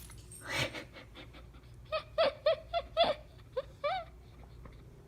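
A run of short, high-pitched giggles, about three or four a second for two seconds, after a soft breathy sound near the start.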